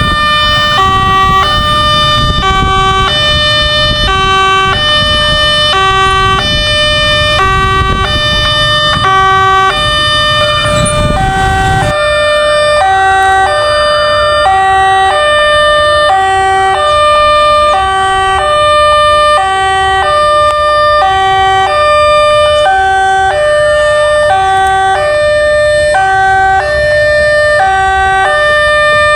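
Railway level-crossing warning alarm sounding a loud, steadily repeating electronic pattern of alternating tones. A heavy low rumble underneath stops abruptly about twelve seconds in.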